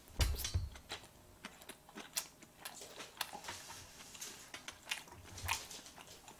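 Close-miked chewing of a mouthful of salmon sushi: a string of small wet mouth clicks and smacks, loudest in the first second.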